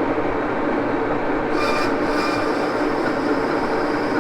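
Axelson metal lathe running at speed with a steady drone, with a brief higher-pitched squeal about a second and a half in.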